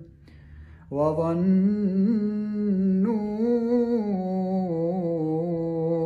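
Male voice in melodic Quran recitation (tajweed). After a short pause of about a second, the reciter holds one long, drawn-out vowel, its pitch winding up and down in ornamented turns without a break.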